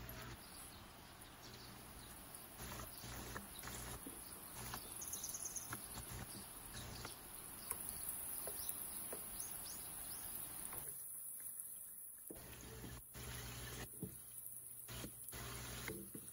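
Dough pastries frying in hot oil in a pan: the oil sizzles steadily with scattered crackling pops.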